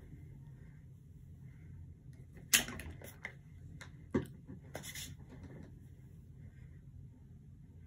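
Close handling noises while hair is being styled by hand: a sharp click about two and a half seconds in, a few lighter clicks, another sharp knock a little after four seconds, then a brief rustle, over a low steady hum.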